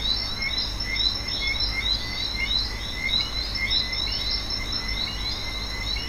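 Summer woodland ambience: rapid, repeated high chirps, several a second, over a steady high insect drone, with a low rumble underneath.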